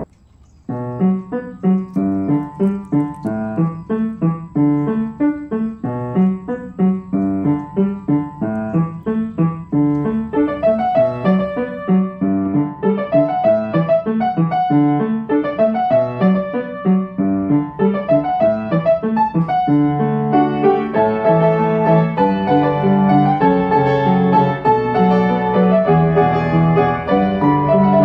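Background piano music: a steady run of evenly repeated notes that begins after a brief pause about a second in and grows fuller near the end.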